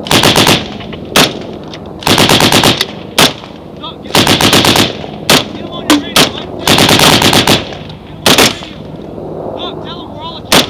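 Automatic gunfire, loud and close: about four long bursts of rapid shots, spaced a couple of seconds apart, with short bursts and single shots between them.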